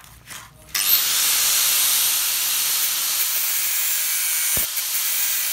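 Angle grinder with a cutting disc slicing through a steel motorbike brake disc: a steady, loud hissing grind that comes in abruptly about a second in, after a few faint handling clicks.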